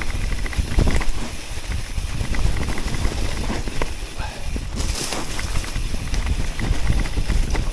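Electric mountain bike rolling down a trail deep in wet leaves: tyres running over leaves and roots, with frequent short clicks and knocks from the bike rattling over bumps and a low rumble throughout.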